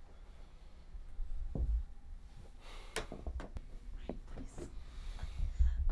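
A person's breathing and sighs over a low, steady room rumble, with a cluster of short soft clicks and rustles about three to four seconds in.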